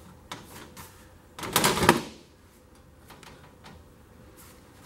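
Thin sheet-metal stovepipe flashing plate being handled and slid against a wooden lattice wall and its fabric: a few light taps, then a louder scraping rustle about a second and a half in.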